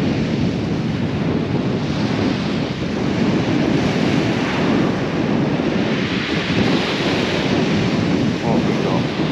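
Wind buffeting the microphone over the steady wash of surf on a shingle beach, the surf's hiss rising for a couple of seconds past the middle.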